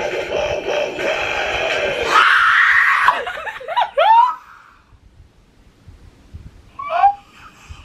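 A woman screams in excitement about two seconds in, cutting over a song playing from the speakers. The scream breaks into high, wavering squeals that stop after about two seconds, and she gives one more short squeal near the end.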